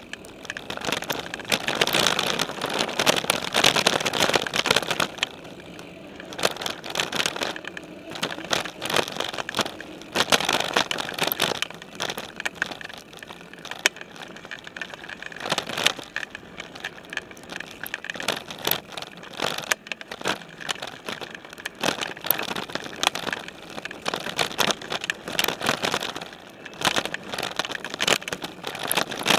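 Specialized Stumpjumper mountain bike ridden over a leaf-strewn dirt trail, heard from a camera mounted on its frame: tyres crunching over leaves, gravel and roots, with constant rattling and clatter of the bike jolting over bumps. It gets louder in rougher stretches, about a second in, around ten seconds in and at the end.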